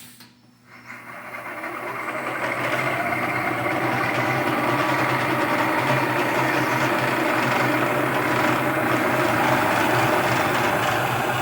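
1980 Shizuoka AN-S CNC milling machine running during a drilling operation in steel: from near quiet about a second in, the machine sound builds over a couple of seconds into a steady mechanical hum with a constant tone.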